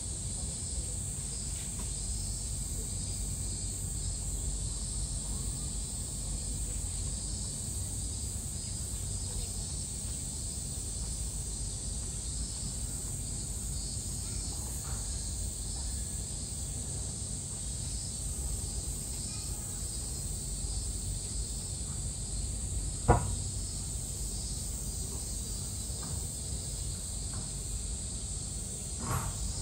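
Cicadas droning steadily in a high-pitched chorus over a low background rumble, with one sharp knock about three-quarters of the way through and a fainter one near the end.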